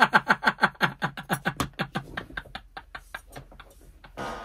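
Two women laughing hard: a fast run of pitched laughs that slow and fade over about three seconds into quieter wheezing, with a short breathy gasp near the end.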